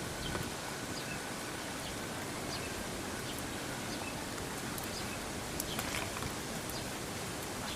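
Steady outdoor background noise with scattered faint clicks.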